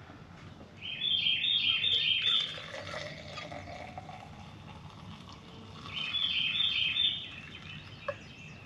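A songbird singing two short phrases, each a quick run of repeated high notes stepping down in pitch: one about a second in, and again about six seconds in.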